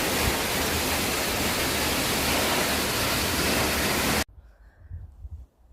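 Steady roar of a waterfall, cutting off abruptly about four seconds in, after which only faint low rumbling remains.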